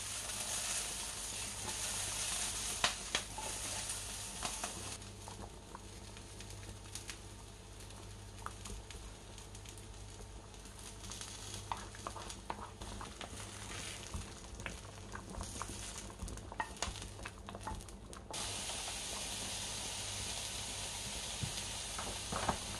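Food sizzling in a frying pan, with scattered light clicks and taps of utensils. The sizzle drops away about five seconds in, leaving mostly the clicks, and comes back steadily near the end.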